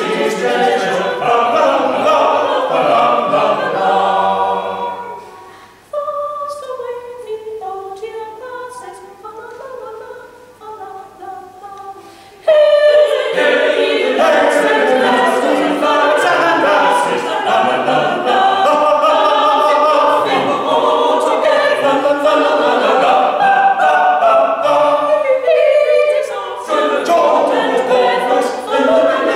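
Church choir singing a hymn unaccompanied. About six seconds in it drops to a soft, thinner passage, and about twelve seconds in the full choir comes back in loudly.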